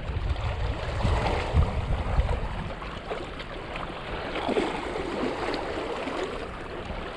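Wind buffeting the microphone as an uneven low rumble, heaviest in the first two seconds, over a steady rushing noise from the wind and the water.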